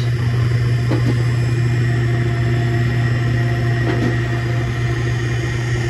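Loud, steady hum of shop fans running.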